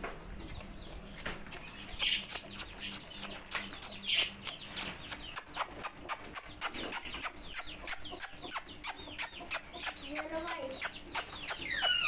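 Chicks peeping: short, high, downward cheeps repeated quickly, about three or four a second, getting denser in the second half, with a few louder fowl calls early on.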